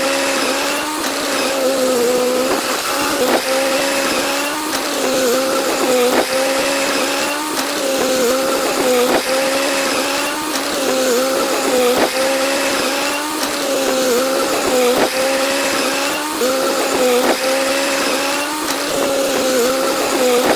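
Excavator running, a steady mechanical whine whose pitch dips briefly about every second or so.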